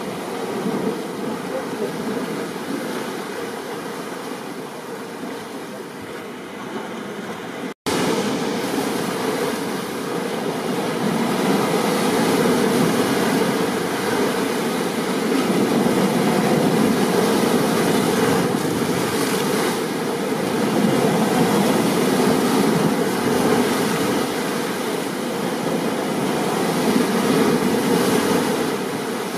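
Steady rain and ocean surf noise, swelling and easing gently. It cuts out for an instant about eight seconds in and comes back louder.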